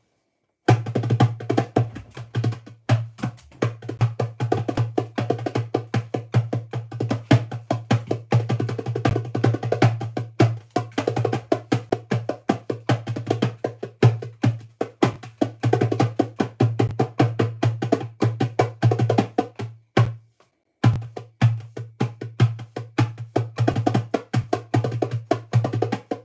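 Drum kit played fast, with dense, rapid hits. The playing stops for about a second near the end, then starts again.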